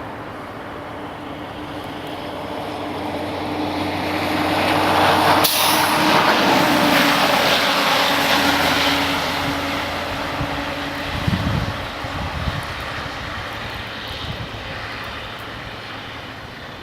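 A vehicle drives past, its engine hum and tyre hiss swelling to a peak about six seconds in, then fading away.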